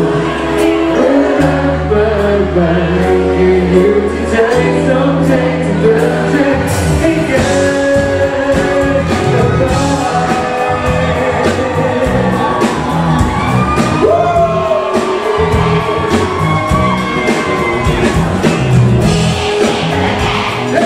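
Live pop band playing with singing, drum hits and held bass notes, the band filling out about seven seconds in, with the audience shouting and cheering along.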